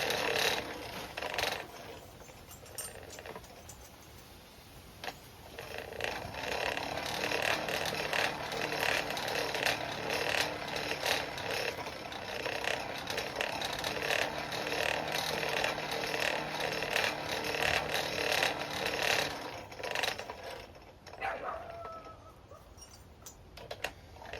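Coal forge's air blower whirring with a mechanical gear clatter, running from about six seconds in until near the end, blowing air into the fire to bring the chain link up to welding heat. There are scattered clicks and crackles throughout.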